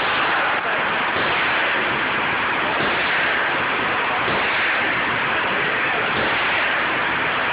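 Steady, loud hiss-like noise with no distinct gunshots standing out.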